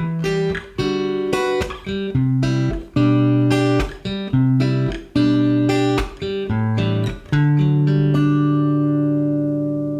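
Background music: acoustic guitar strumming chords, ending on a last chord that rings out and fades from about seven seconds in.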